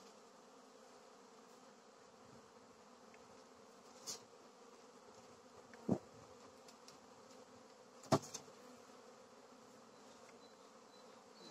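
Carniolan honeybees buzzing around an opened hive, a steady, faint hum. Three short knocks sound about 4, 6 and 8 seconds in.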